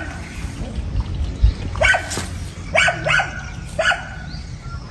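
A dog barking, four short barks in the second half, two of them close together.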